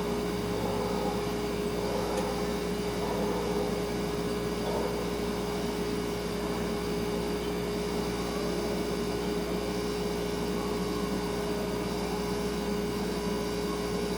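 Kitchen refrigerator running with a steady hum: one clear held tone over a low drone, unchanging throughout.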